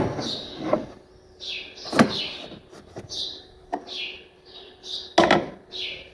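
Several sharp knocks and clunks, with a small bird chirping over and over between them, short chirps falling in pitch.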